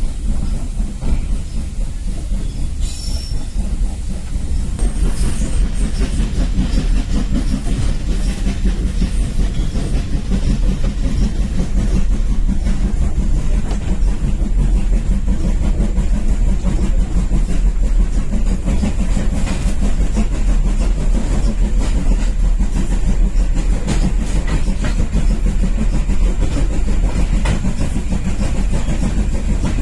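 Heritage steam railway train running along the track, a steady low rumble.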